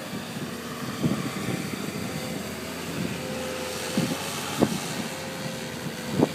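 Wheel loader's diesel engine running as it drives over loose sand, with an on-and-off steady whine and a few sharp knocks in the second half.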